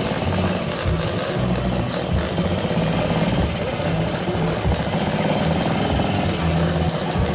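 Classic motorcycle engine running with a rough, rapid chugging beat amid surrounding motor noise.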